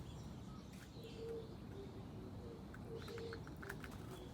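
A dove cooing, a low note repeated several times, with a few short higher bird chirps near the end over faint outdoor ambience.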